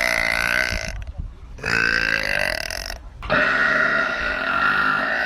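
Three burps from a woman, one after another. The first ends about a second in, the second runs from just under two seconds to about three, and the third, starting a little after three seconds, is long and drawn out.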